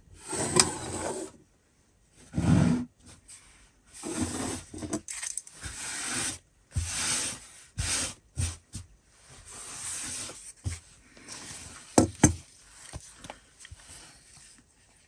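Rustling and scraping of a filofax's stripped-down parts, card board and frayed fabric, being handled and slid over a wooden tabletop, in irregular short bursts. A couple of sharp knocks about 12 seconds in, as something is set down on the table.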